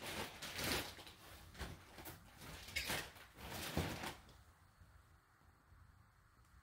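Rustling handling noise close to the microphone: four or five swishes about a second apart that die away a little after four seconds in.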